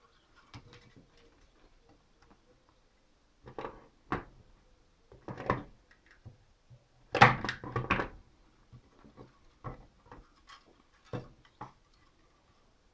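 Irregular knocks and clicks from a wooden beehive frame being handled and worked on while it is wired, with the loudest cluster of knocks about seven to eight seconds in.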